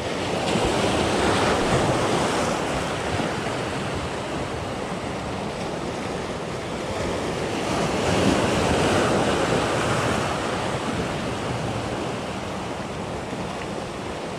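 Sea surf breaking and washing over shoreline rocks, with wind buffeting the microphone. The waves surge loudest about two seconds in and again about eight seconds in.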